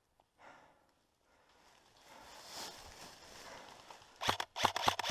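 Airsoft rifle firing a quick string of about a dozen sharp shots, roughly seven a second, starting about four seconds in and lasting about a second and a half.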